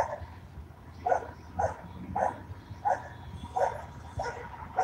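Police K9 dog barking over and over in a steady rhythm, about one bark every half second or so.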